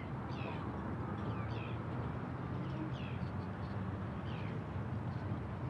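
Birds calling outdoors, short falling chirps repeated every half second or so, over a steady low rumble and hiss.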